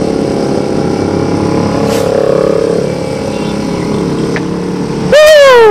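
Yamaha R15's single-cylinder engine running steadily at a slow cruise, mixed with wind and road noise. About five seconds in, a much louder high-pitched sound takes over, its pitch sliding down and then wavering.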